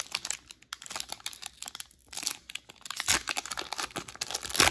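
Foil wrapper of a Panini Prizm basketball card pack being torn open and crinkled by hand, in irregular sharp crackles, the loudest tear near the end.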